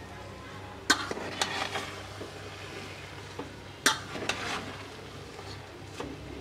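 A spatula stirring and turning cooked rice in a metal pot, with soft scraping and a few sharp knocks against the pot. A steady low hum runs underneath.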